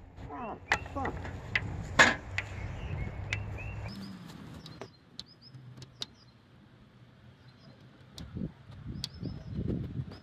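A stick knocking against burning wood in a metal burn barrel: a run of sharp knocks, the loudest about two seconds in. Then a quieter stretch with a few scattered clicks and small birds chirping.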